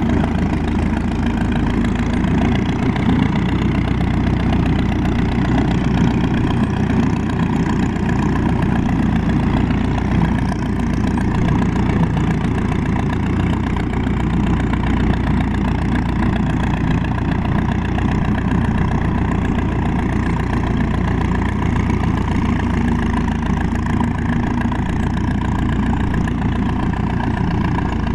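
Holt 5-ton artillery tractor's engine running steadily at low revs as the crawler moves slowly along.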